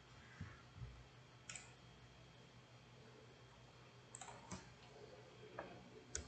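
Several faint computer mouse clicks, scattered and irregular, over near-silent room tone with a low steady hum.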